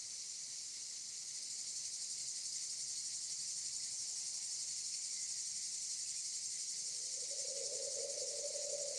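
Steady high-pitched chorus of insects, such as crickets, shrilling without pause. A low hum joins about seven seconds in.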